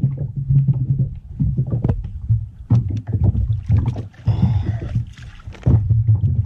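Knocks and clicks of rod, reel and body moving against a plastic fishing kayak while a large blue catfish is fought, over a steady low rumble, with a short hiss about four seconds in.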